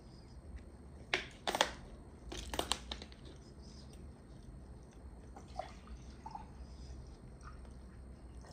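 Crinkles and clicks of a thin plastic water bottle being grabbed and handled: a short crackling cluster about a second in and another around two and a half seconds, then only faint small handling sounds.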